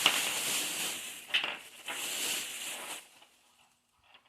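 Rustling of a fabric throw blanket being handled and unfolded, with a few louder scrapes. The rustling stops about three seconds in.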